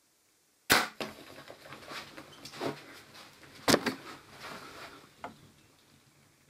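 A bow shot at a kudu bull: a loud, sharp crack about a second in, then a scramble of knocks and clatter as the kudu bolt off, with a second sharp crack about three seconds later.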